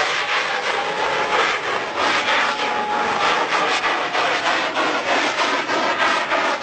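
Thai bang fai, a large homemade black-powder rocket, burning as it climbs: a steady, dense rushing noise with a rapid irregular crackle.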